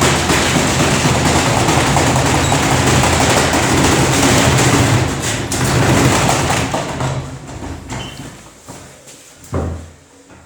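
Samsung washing machine spinning with a 2 kg weight loose in the drum: a loud, dense mechanical din over a steady low hum. It fades away over the last few seconds as the drum slows, with a single thud near the end.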